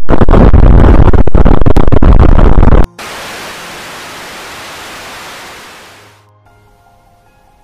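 A very loud, distorted burst of noise with sharp cracks through it for about three seconds, cutting off abruptly. A softer steady hiss follows and fades out over the next few seconds.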